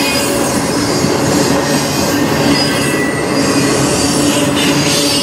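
Loaded autorack freight cars rolling past close by: a steady rumble and rattle of steel wheels on the rails, with faint high squealing from the wheels.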